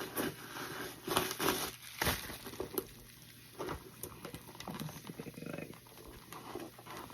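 Rustling and scattered light knocks and clicks of a handbag being handled and opened.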